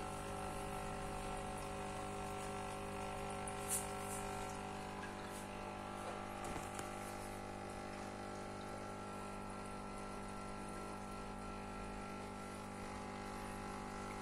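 Aquarium internal power filter running: a steady motor hum with water flowing. There is a brief click nearly four seconds in.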